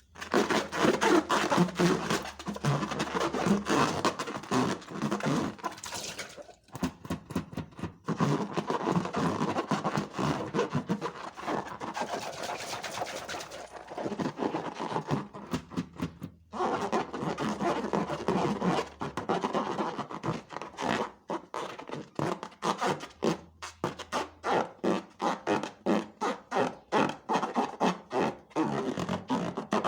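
Slime being squeezed and kneaded by hand: a dense run of wet clicks and small pops, with brief pauses about six and sixteen seconds in.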